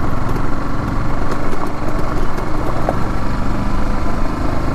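Motorcycle engine running steadily at low speed while being ridden, a continuous low rumble.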